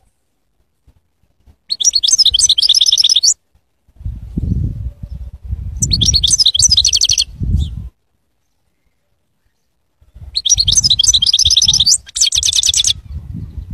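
A caged European goldfinch singing three bursts of rapid, twittering song, each about one and a half to two and a half seconds long, with pauses between. A low rumble sits under the second and third bursts.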